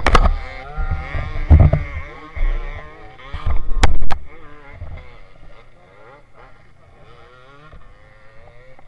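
Dirt bike engines revving faintly, their pitch wavering up and down as the bikes climb. Loud knocks and buffeting on the microphone come over them in the first half, the loudest about four seconds in.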